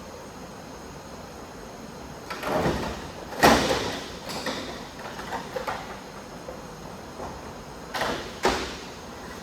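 A scrape and then a sharp, loud knock about three and a half seconds in, followed by several smaller knocks, with another scrape and knock near the end.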